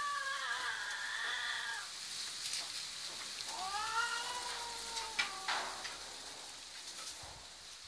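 Cats yowling while mating: a long drawn-out call that ends about two seconds in, then a second call that rises and falls a little after the middle, followed by a couple of short clicks.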